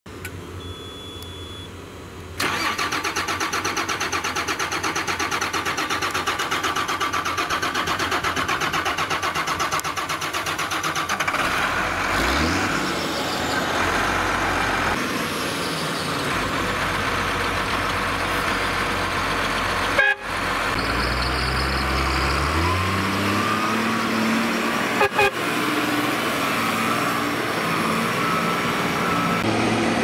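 New Holland TG285's 8.3-litre six-cylinder diesel cold-starting about two seconds in, then running with a fast, even firing beat. Later it revs, rising in pitch, as the tractor drives off.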